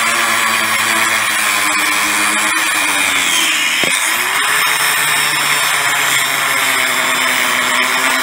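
Angle grinder with a thin cutoff disc cutting through a conch shell, lopping off the spire to make a conch horn: a steady motor whine over a gritty grinding hiss. The motor's pitch sags about two and a half seconds in as the disc bites into the shell, then picks back up about a second and a half later.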